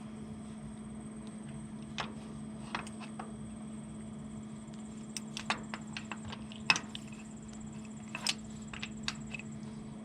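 Scattered, irregular clicks and light metallic knocks of hand tools working on the tractor's hydraulic pump fittings, the sharpest about two-thirds of the way in, over a steady low hum.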